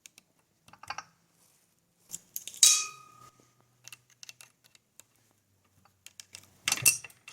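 Small metal clicks and clinks of a chain's master link being worked loose by hand and tool, with one brighter metal clink about two and a half seconds in that rings briefly.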